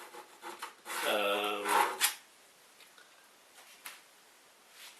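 A man's voice for about a second, then near silence with room tone and two faint clicks.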